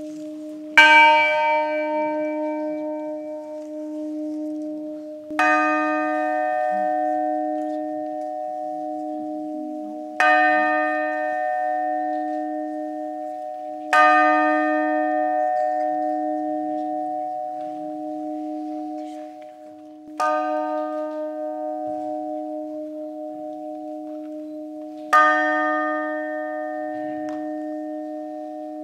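New bronze church bell, the Saint Jean-Baptiste, struck by hand six times about five seconds apart. Each stroke rings out and decays into a low hum that wavers and carries on into the next stroke.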